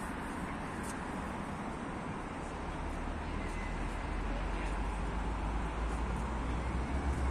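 Steady road-traffic noise from cars driving along a multi-lane avenue: an even wash of tyre and engine sound, with a deeper rumble growing louder about three seconds in.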